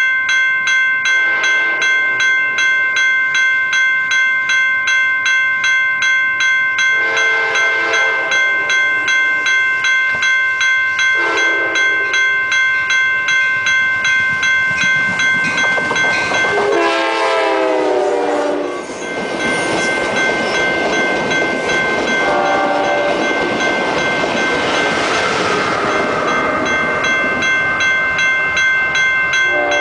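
Diesel locomotive horn blowing the grade-crossing pattern: two long blasts, a short one, then a long, loud blast that drops in pitch as the train passes, over a crossing bell ringing steadily about twice a second. The rumble of the passing train follows, with one more short horn blast, and another horn blast begins at the very end.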